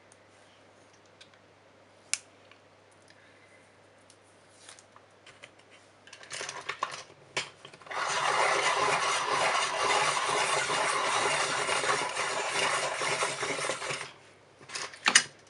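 A few faint clicks, then about eight seconds in a Polychromos coloured pencil is sharpened: a steady scraping for about six seconds that stops abruptly. A couple of sharp knocks follow near the end.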